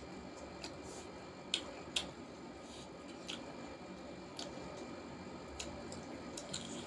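Close-miked wet mouth sounds of eating with the fingers: lip smacks and sharp sucking clicks while chewing pieces of chicken curry. There are about six clicks in all, the loudest two about a second and a half and two seconds in.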